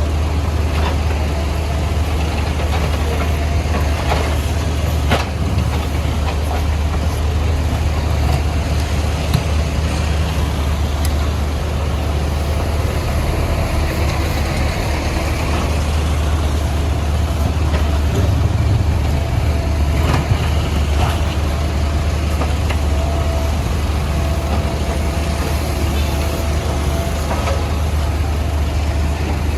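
Diesel engine of a CAT 462F backhoe loader running steadily at a low, even hum, with occasional sharp knocks and clanks from the machine at work.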